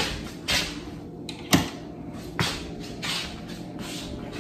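Household handling noise: three sharp knocks and clicks with soft shuffling in between.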